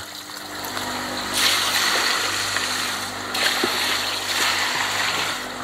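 Pond water poured from a dipper into a barrel filter chamber, splashing down onto the biological filter media. The splash is loudest from about a second in to about three seconds in, then eases off, over a steady low hum.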